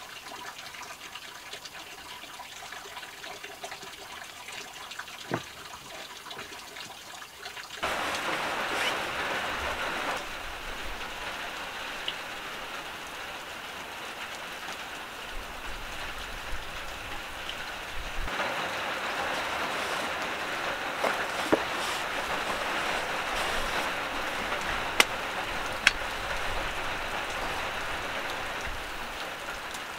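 Falling water pattering steadily, faint at first and suddenly louder about eight seconds in, with a few sharp clicks later on.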